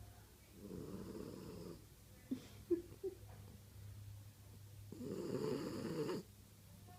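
French bulldog snoring in her sleep: two long snores about four seconds apart, the second a little louder, with a few short high squeaks between them, over a steady low hum.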